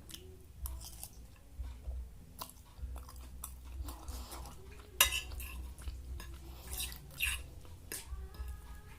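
A person chewing and crunching food close to the microphone, with light clinks of cutlery on a plate; a sharp click stands out about five seconds in.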